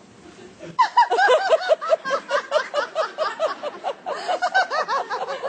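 Theatre audience laughing: after a short quiet moment, a burst of many overlapping laughs about a second in that carries on loudly.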